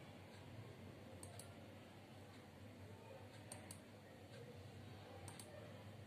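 Faint computer mouse clicks, in quick pairs three times, over quiet room tone with a low steady hum.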